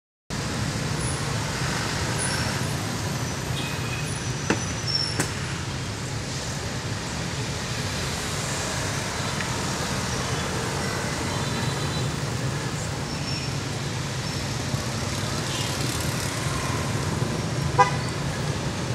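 Street traffic noise: a steady rumble of passing vehicles with occasional short horn toots, starting suddenly just after the opening.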